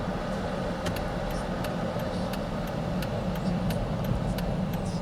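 Car running, heard inside the cabin as a steady rumble of engine and road noise. About a second in, a turn-signal flasher starts ticking evenly, about three times a second.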